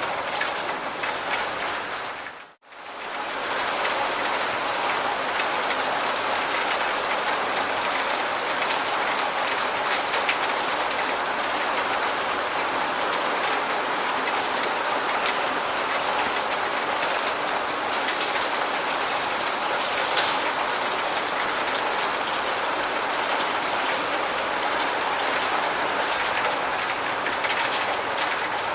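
Steady, dense rainfall with fine patters of drops, which briefly fades almost to silence about two and a half seconds in and then swells back.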